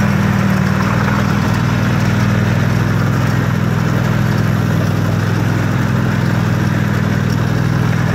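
Small riding-mower engine on a homemade tracked lawnmower running steadily at an even speed as the machine drives along.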